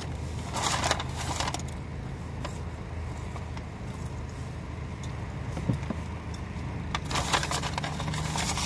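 Paper takeout bag crackling and rustling as hands dig through it, in two bursts, about a second in and again near the end, over the steady low hum of the car.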